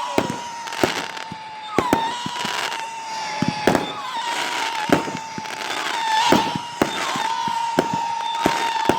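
Consumer fireworks going off: irregular sharp bangs and pops over continuous crackling, with a steady high whistle running underneath.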